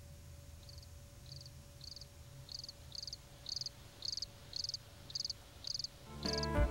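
Cricket chirping, the stock sound effect for an awkward silence: short high chirps about two a second that grow louder. Music starts near the end.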